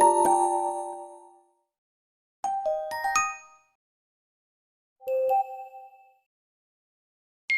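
vivo Y21 notification tones playing one after another, short bell-like electronic chimes. One fades out in the first second and a half. Two more of a few quick notes each follow at about 2.5 and 5 seconds, with dead silence between them, and another begins right at the end.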